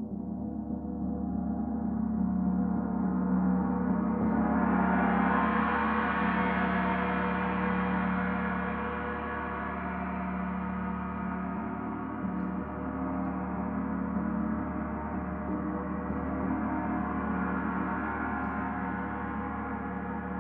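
Paiste Saturn planet gong, tuned to D at 147.85 Hz, ringing continuously with a dense shimmering wash of overtones. It swells brighter and louder about four to six seconds in, settles, and swells again near the end.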